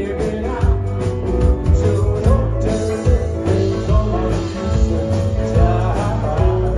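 Live band playing music with a steady drum beat and a heavy bass line.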